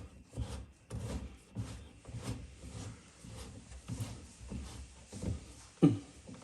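Plastic threaded nut on a sink drain pipe being turned tight by hand: short rubbing clicks of plastic on plastic about twice a second, with one sharper knock near the end.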